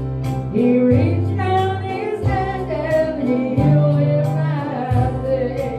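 A woman singing a gospel song to guitar accompaniment, with bass notes and a steady beat of about three strokes a second.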